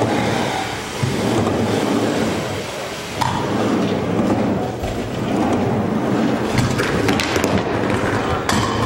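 Wheels rolling over wooden skatepark ramps: a continuous low rumble, with sharper clatter and knocks in the second half.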